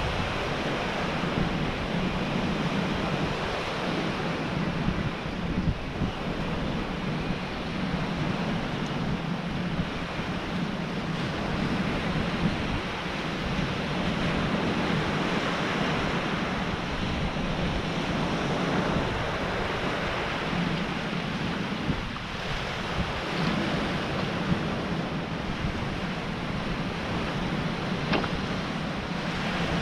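Surf breaking and washing over a pebble beach, a steady rushing, with wind rumbling on the microphone.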